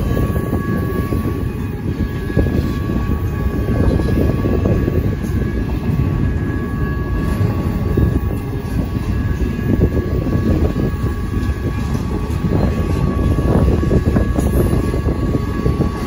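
Double-stack intermodal freight cars rolling through a grade crossing, a loud steady rumble of steel wheels on rail. Over it, the crossing's electronic bell sounds as a steady ringing tone.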